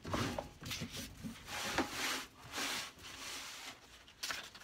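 A metal hand-plane part rubbed back and forth on sandpaper stuck to a flat board. Each stroke gives a scratchy rub, several strokes in a row.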